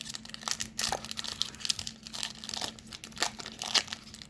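Crinkling and crackling of a hockey card pack's wrapper as it is handled and opened, in irregular bursts throughout.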